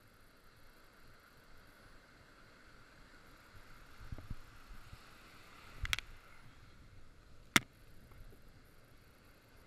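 Faint, steady, muffled wash of breaking surf, with two sharp clicks about a second and a half apart past the middle, the second the loudest.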